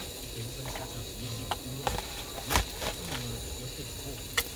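A handful of scattered clicks and knocks, about six in all, the loudest a dull thump a little over halfway, over a low steady hum.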